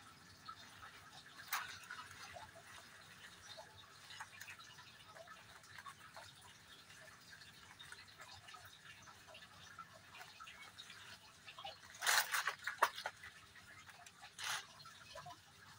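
Hands pressing and smoothing potting soil in a plastic seedling tray: faint scattered crackles and ticks of soil on plastic, with a louder scraping rustle about twelve seconds in and another briefly near the end.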